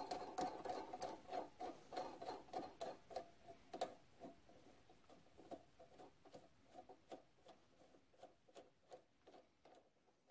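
A hex nut spun by hand along the freshly cut 7/16-20 thread of a steel push rod held in a stopped lathe chuck, to check the thread: a run of light metallic clicks, several a second, each with a faint ring, growing gradually fainter.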